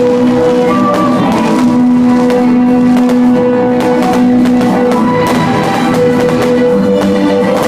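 Music with long held notes, playing steadily.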